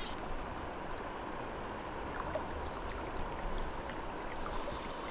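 River water flowing steadily, an even rushing noise, with a short high tick right at the start.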